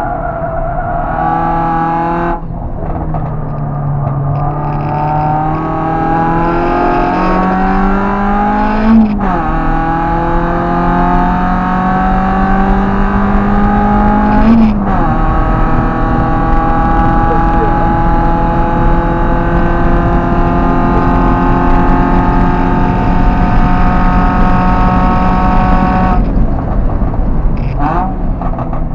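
Car engine heard from inside the cabin at full throttle, its pitch climbing through the gears with sharp upshifts about 2, 9 and 15 seconds in. It then holds high revs on a long straight before lifting off near the end, with a few brief rev changes.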